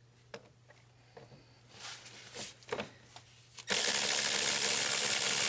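Electric ratchet running steadily for about two seconds, starting a little past halfway, as it drives a bolt in; before it, a few light clicks and rattles of tools and bolts being handled.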